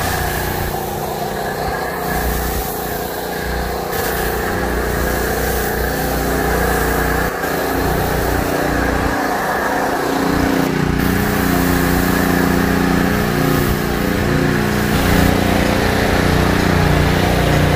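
Pressure washer running steadily while a foam cannon sprays snow foam onto a truck, the motor's hum under the hiss of the spray.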